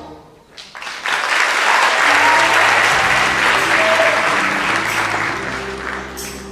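Audience applauding. It swells about a second in and slowly fades toward the end.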